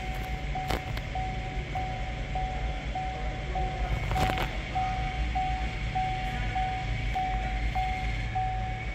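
2019 Chevrolet Equinox instrument-cluster warning chime beeping at one steady pitch, about one and a half to two beeps a second. Beneath it runs a low steady hum, and there are two short knocks, about a second in and about four seconds in.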